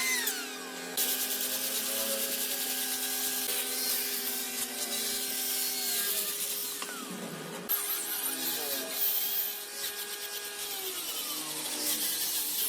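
Wood being worked with a tool, giving a steady rubbing, sanding-like hiss, over several long held tones.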